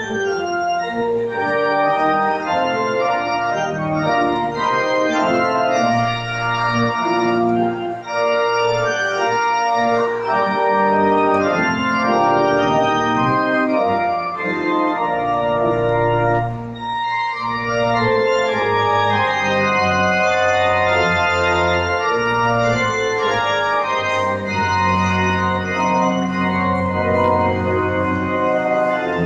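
A 1919 church pipe organ played in held, slow-changing chords over sustained pedal bass notes, with a short break between phrases a little past halfway.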